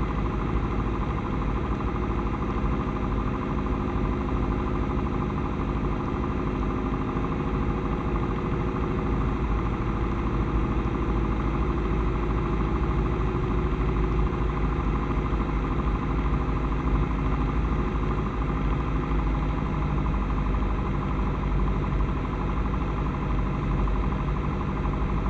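Steady drone of a light single-engine propeller plane's piston engine, heard inside the cabin with wind noise, throttled back to about 1700 rpm for the landing approach.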